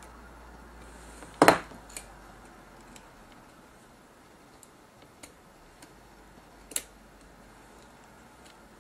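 A few small, sharp clicks and taps of a screwdriver and small metal and plastic parts on a camcorder tape deck being taken apart, the loudest about a second and a half in.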